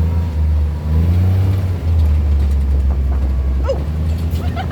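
ATV engine accelerating, its note rising over the first couple of seconds, then running on steadily with a deep low rumble.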